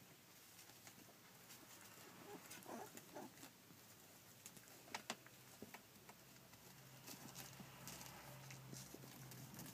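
Faint squeaks of two-week-old rough collie puppies, a few short ones about three seconds in, among light scuffling clicks.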